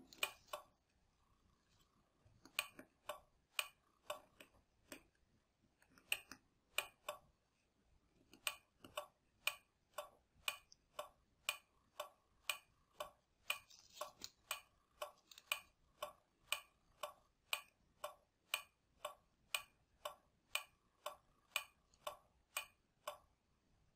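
Relay in a car alarm remote-control unit clicking faintly as it pulses the turn-signal (flasher) outputs: a few scattered clicks at first, then from about eight seconds in an even rhythm of about two clicks a second. The flashing shows the flasher outputs are working.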